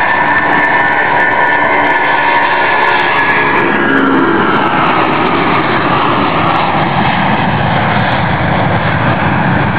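Boeing 747's four jet engines at takeoff power, loud and steady. A whine in the first few seconds gives way to a rushing roar.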